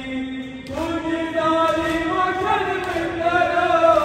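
A noha, a Shia mourning chant, sung by a man's voice: a long held note ends just under a second in, then a new line begins with wavering, sliding pitch. Faint unison chest-beats of matam fall about every two seconds.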